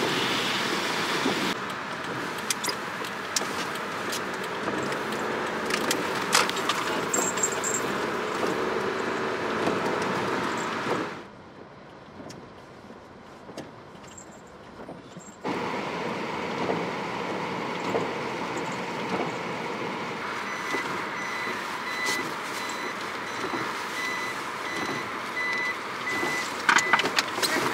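Inside the cab of a kei van driving on snow-covered roads: a steady rush of tyre and road noise with the engine running, which drops away for a few seconds about halfway through. In the last several seconds a high reversing warning beep repeats steadily.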